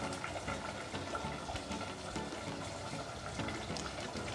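Rice and water bubbling in an open aluminium pressure cooker, a steady low simmer with many small irregular pops.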